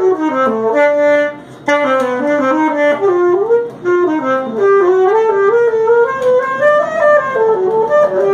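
Solo saxophone playing a quick melody of running notes that climb and fall, with a short breath break about a second and a half in.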